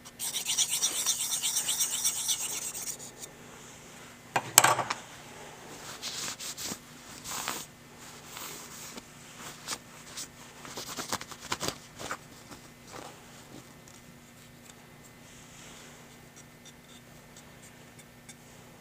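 Steel knife blade being stroked against a 1000-grit Edge Pro sharpening stone, the last and finest stage of the sharpening: a quick run of scraping strokes in the first three seconds, a single knock about four and a half seconds in, then slower, fainter strokes that trail off.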